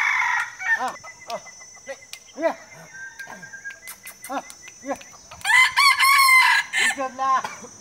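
Roosters crowing and calling: short arched calls about once a second, then a long, loud crow about five and a half seconds in.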